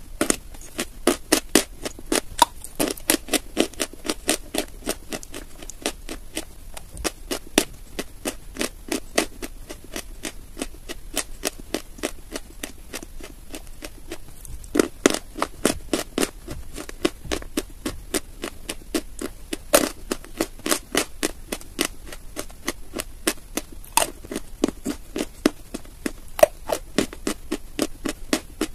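Dry white chalk being chewed close to the microphone: crisp, dry crunches, about two or three a second, that come thickest about halfway through.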